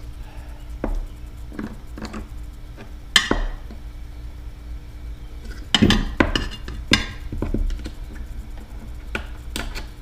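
Metal parts of an outboard recoil starter clinking and knocking as the housing and its new coiled rewind spring are handled, in scattered sharp clicks with a cluster of knocks about six seconds in.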